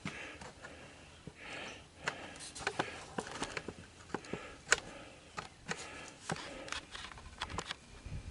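Scattered light clicks and taps of objects being handled, a dozen or so irregular small knocks with quiet gaps between them.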